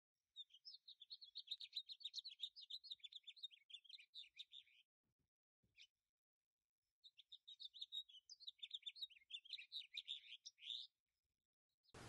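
Small songbirds twittering: two long runs of rapid, high chirps, each about four seconds long, with a pause of about two seconds between them.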